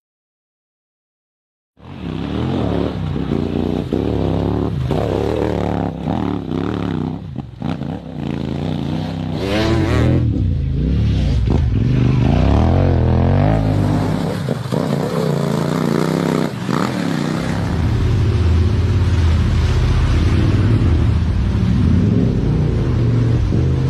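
Silence for about the first two seconds, then off-road motorcycle engines revving hard, their pitch rising and falling again and again, with a few knocks along the way.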